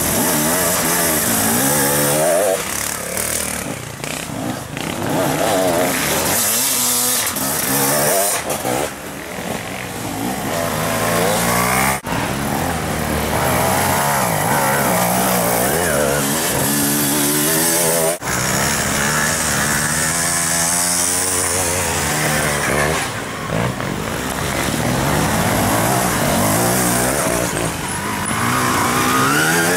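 Off-road dirt bike engines revving hard and easing off over and over, the pitch rising and falling with the throttle, as several bikes come through in turn.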